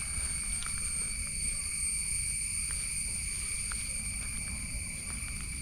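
A steady high-pitched insect chorus, with several unbroken tones, over a low rumble and a few faint ticks.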